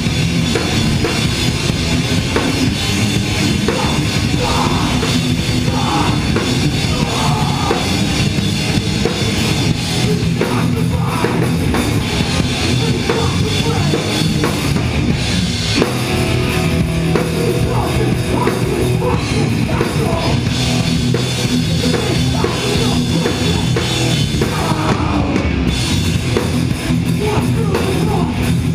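Live heavy rock band playing loud, with electric guitars and a pounding drum kit.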